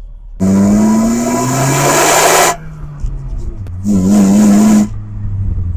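1991 Honda Accord's four-cylinder engine revving up loudly under acceleration for about two seconds, rising in pitch, then a second, shorter burst of revs about a second later.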